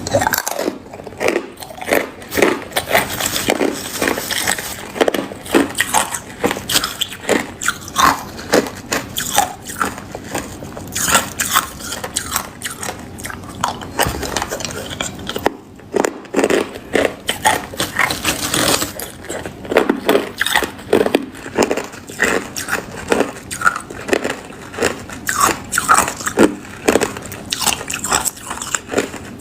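Crushed clear ice being bitten and chewed close to the microphone: a dense, irregular run of loud crunches, with a brief pause about halfway through.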